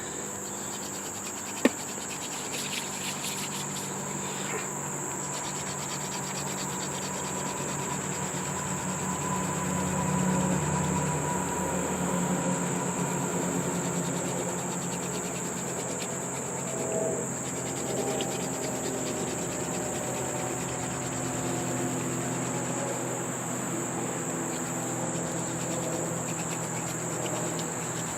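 Steady high-pitched chirring of crickets throughout. Under it is the low rubbing of a wooden hand-drill spindle twirled against a hearth board, which swells for a few seconds about ten seconds in.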